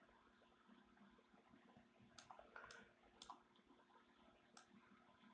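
Near silence, with a few faint sharp clicks from a computer mouse about halfway through.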